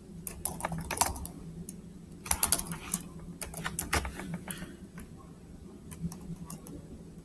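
Typing on a computer keyboard: several short runs of keystrokes with pauses between them.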